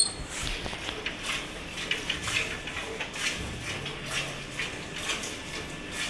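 Milk squirting from a cow's teats into a steel bucket by hand milking, in short rhythmic squirts about two to three a second. A short metallic clink sounds at the very start.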